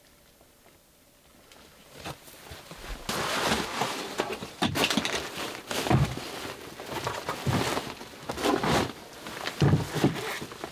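Fabric and strap rustling as a backpack is taken off and set down, starting about two seconds in, with a few dull thumps.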